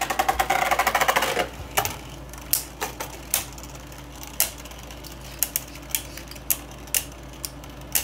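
Two Beyblade Burst tops, Geist Fafnir and Brutal Luinor, spinning and clashing in a plastic stadium: a dense rapid clatter for about the first second and a half, then scattered sharp clicks as they strike each other.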